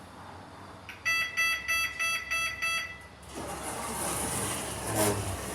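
Lift's electronic beeper sounding about six short, quick beeps over two seconds, then a rushing mechanical noise with a knock near the end.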